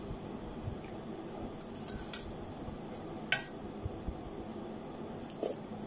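Metal spoon and fork clinking against a stainless steel bowl of noodles: a few sharp clinks, a cluster about two seconds in, the loudest just past the middle with a short ring, and two more near the end.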